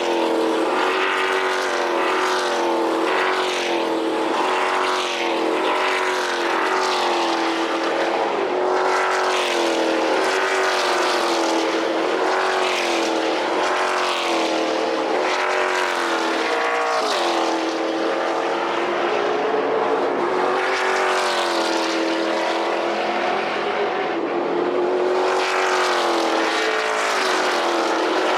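A pack of NASCAR stock cars with V8 engines running at race speed. Several engine notes overlap and rise and fall continuously as the cars lift and accelerate.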